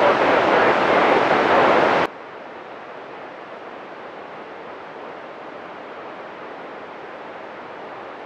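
FM radio receiver static on the ISS 145.800 MHz downlink: loud, even hiss with no signal as the station sits at the horizon. About two seconds in it drops abruptly to a quieter, duller hiss that holds steady.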